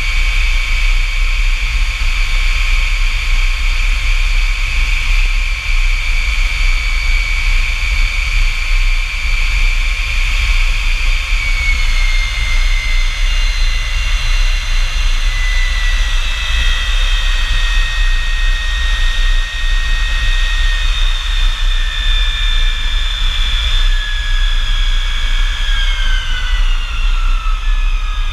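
North American F-100 Super Sabre's Pratt & Whitney J57 turbojet running with a loud high whine over a low rumble. The whine holds steady, then begins to fall in pitch about twelve seconds in and drops faster near the end.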